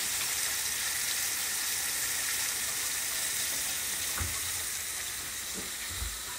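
Floured cubed pork cutlets frying in hot oil in a cast-iron skillet: a steady sizzle, with two soft knocks in the second half.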